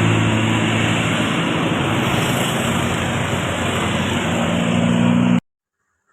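Bus engine running close by with loud road and traffic noise, its low engine note holding steady; the sound cuts off abruptly about five seconds in.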